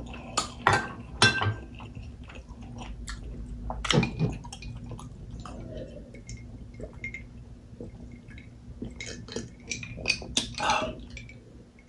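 Close-miked eating sounds: sipping soup broth from a spoon and chewing with sharp mouth clicks, then swallowing while drinking juice from a glass jar, with light clinks of spoon and glass.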